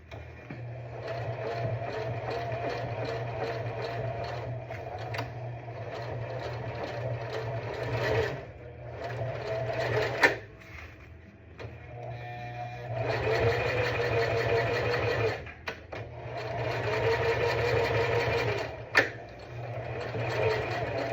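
Sewing machine stitching in several runs of a few seconds each, stopping and starting again, with a sharp click during two of the pauses.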